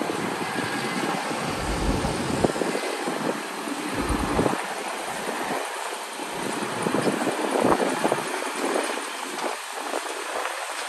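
Heavy diesel earthmoving machinery running steadily, with wind buffeting the microphone in low gusts about two, four and eight seconds in.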